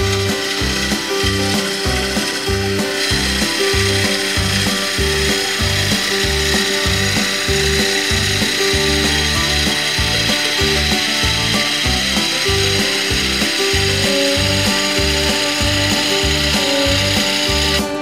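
Bowl gouge cutting the outside of a wooden bowl spinning on a wood lathe, a steady hiss of shavings coming off as the bowl is trued, under background music with a steady beat. The cutting hiss gets stronger about three seconds in and stops at the very end.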